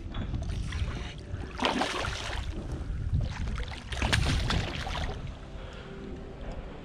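A hooked fish thrashing and splashing at the water's surface beside a kayak, in two bursts: about one and a half seconds in and again about four seconds in.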